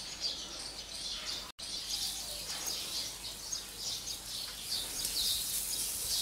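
Small birds chirping repeatedly outdoors; from about two-thirds of the way in, a faint high hiss as raw pork patties begin to sizzle on a charcoal grill.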